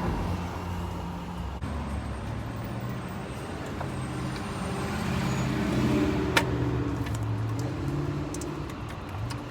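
A vehicle engine running, its pitch stepping up and down, with one sharp click about six seconds in.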